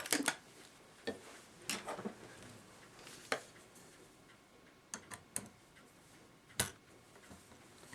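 About eight short, sharp metallic clicks and taps at irregular intervals as the clock movement is handled.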